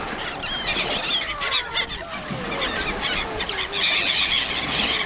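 A flock of birds calling over the sea: many overlapping squeaky calls and short falling glides, thickest about four seconds in, over a steady wash of sea noise.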